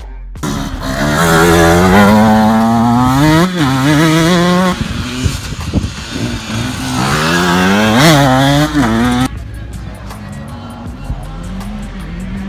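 Enduro dirt bike engine revving hard as the bike accelerates close by, its pitch climbing, dipping at a gear change and climbing again, twice over. About nine seconds in the sound drops suddenly to a fainter motorbike engine.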